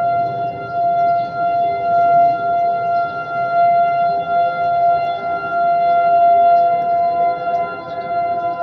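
Outdoor civil defense warning sirens sounding a steady tone for the monthly test. The loudness swells and fades every second or two, with a fainter second, lower siren tone beneath.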